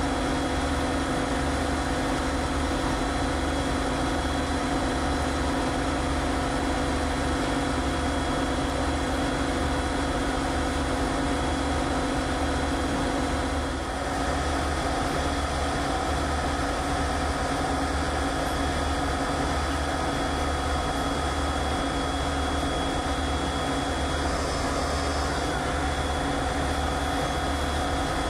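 A large engine idling steadily, a constant low mechanical drone with a hum running through it. The pitch of the hum shifts a little about halfway through.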